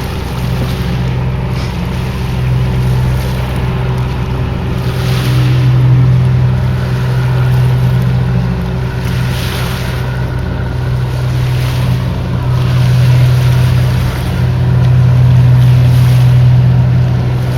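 Steady low engine drone with wind and rushing noise over it, swelling and easing in loudness.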